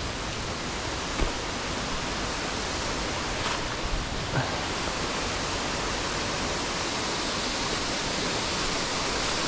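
Rushing water of a cascading waterfall, a steady full hiss, with two faint knocks early on.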